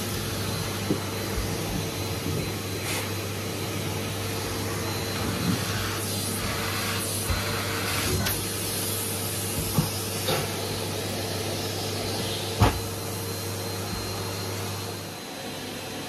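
Numatic Henry cylinder vacuum cleaner running steadily, its motor humming under a constant suction hiss as the crevice tool and wand are drawn along a bed base and carpet. Several short knocks as the tool bumps against the bed base and floor, the sharpest about two-thirds of the way through.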